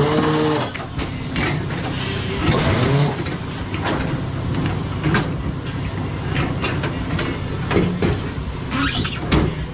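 Tyre-shop workshop noise: a steady mechanical hum with scattered clanks and knocks, and a short burst of hiss about two and a half seconds in.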